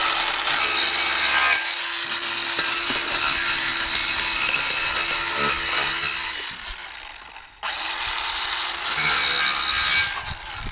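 Ryobi cordless circular saw running and cutting through a cardboard box lid. It winds down about seven seconds in, is started again half a second later, and runs until just before the end.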